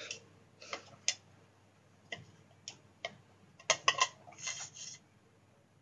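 A few faint, irregular clicks and light taps, with a small cluster of them about four seconds in.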